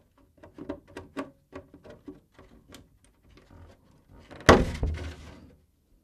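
Clear polycarbonate RC truck body shell clicking and crackling as a small cutout is worked out of it with pliers, with a louder crinkling thump of the flexing shell about four and a half seconds in.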